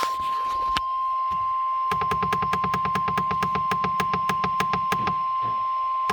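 NOAA Weather Radio's 1050 Hz warning alarm tone, sounded as the Required Weekly Test of the warning device: one steady, unbroken high beep that cuts off suddenly at the end. From about two seconds in, a rapid clicking buzz of about seven clicks a second sits under the tone until just before it stops.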